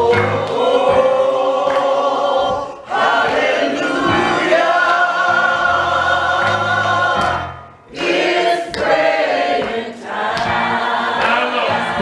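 Gospel choir singing long held phrases over keyboard accompaniment with repeated low bass notes. The singing breaks off briefly twice.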